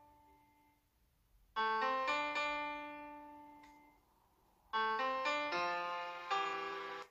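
Piano music played back through a Lenovo Tab M10 tablet's speakers: a quick run of notes about one and a half seconds in that rings away, then another run near five seconds in, with lower notes added, that cuts off suddenly.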